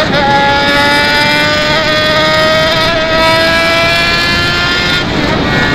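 Yamaha XJ6's inline-four engine through a straight-through 4-into-1 exhaust with no muffler, accelerating under load with its pitch rising steadily for about five seconds, then falling near the end.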